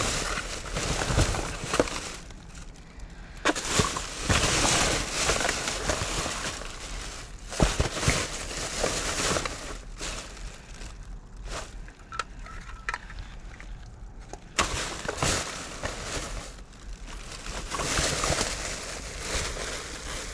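Plastic bags rustling and crinkling in irregular bursts as they are handled and shifted, with a few sharp crackles and a faint low hum underneath.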